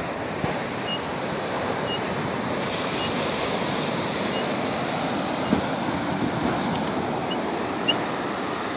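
Ocean surf breaking and washing steadily on a sandy beach, with faint high ticks about once a second during the first few seconds.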